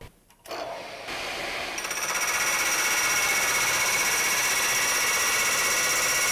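A vertical milling machine's spindle is switched on about half a second in and runs up. From about two seconds in, a hole saw in the spindle cuts a coped, curved end into an aluminum bicycle frame tube with a steady, high-pitched cutting whine.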